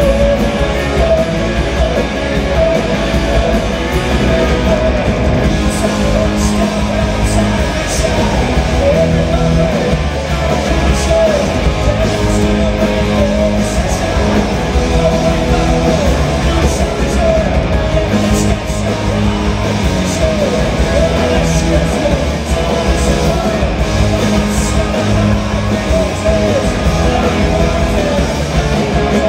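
A hard rock band playing live and loud: electric guitars, bass and drums, with a male lead singer.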